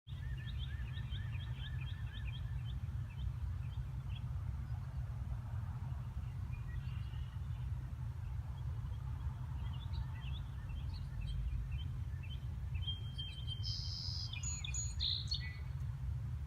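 Birds chirping in quick series, with one louder, higher call near the end, over a steady low rumble.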